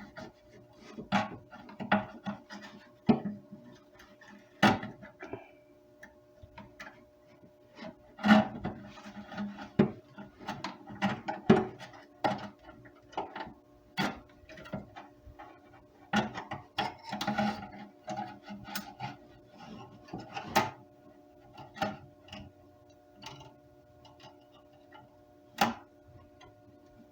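Irregular clicks, taps and knocks of a coping saw's frame and blade being handled and the blade refitted into the frame after threading it through a drilled hole. A faint steady hum runs underneath.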